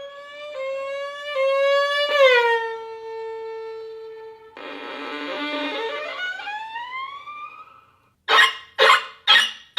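Violin played as sound effects with sliding pitches: held notes, one swooping down, then a scratchy bowed passage with notes gliding upward, and four short sharp bow strokes near the end.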